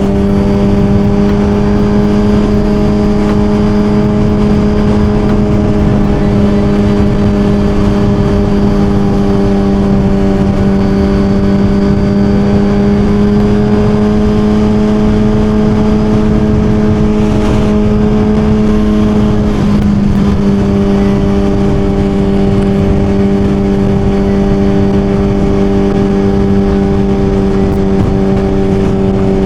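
Suzuki GSX-R1000 inline-four engine running at steady cruising revs under way, its pitch holding nearly constant. About twenty seconds in there is a brief dip in revs, then it settles back to the same steady note.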